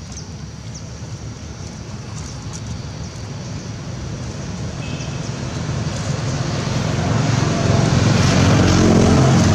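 A motor vehicle approaching, its engine and road noise growing steadily louder and loudest near the end.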